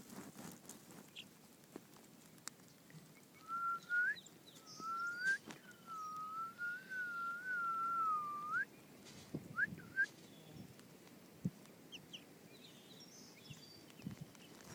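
Someone whistling: two short rising notes, then one long wavering note, and two quick upward sweeps near the end. Faint peeping of young chicks can be heard under it.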